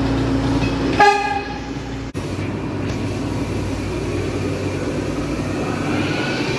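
A train horn gives one short, loud blast about a second in, over the rumble of the train. After an abrupt break, a train runs past with a steady rumble and a faint whine rising in pitch.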